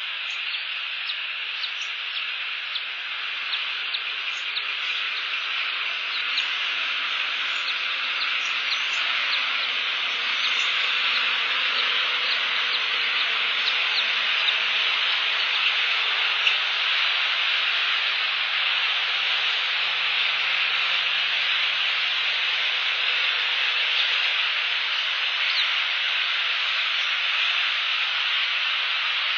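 Steady rain falling on the nest: an even hiss with scattered small ticks of drops.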